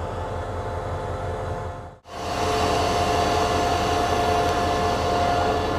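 SRT QSY-class diesel-electric locomotive standing and idling, a steady low engine throb under a steady whine. The sound cuts out for an instant about two seconds in and comes back louder.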